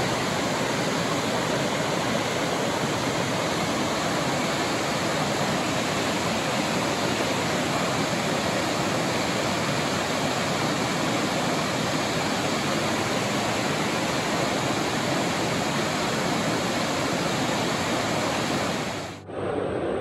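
Waterfall: a loud, steady rush of falling water that cuts off abruptly about a second before the end.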